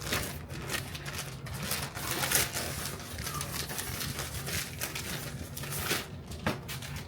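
Plastic tortilla-wrap packaging crinkling and rustling as it is opened and the wraps are handled, an irregular crackle that dies down about six seconds in.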